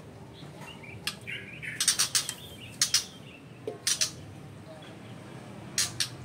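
White-rumped shama giving short, harsh call notes in scattered bursts, a quick cluster of them about two seconds in, with a brief warbled note near the start.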